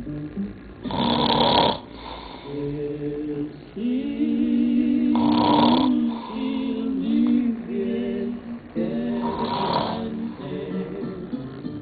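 A man snoring heavily: three loud, rasping snores about four seconds apart, over music with singing.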